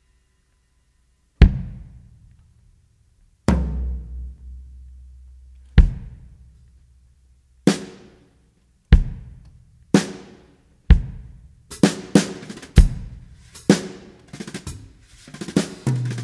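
Drum kit in a music track: after a short silence, single heavy hits ring out every second or two over deep bass notes, then the strikes come faster and crowd into a busy drum pattern near the end.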